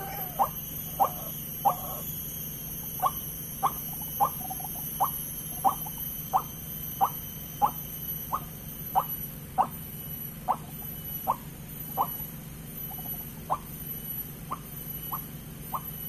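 White-breasted waterhen call played through a Bluetooth speaker as a trapping lure: a steady series of short, sharp notes about one and a half a second, with a couple of brief pauses, getting softer near the end.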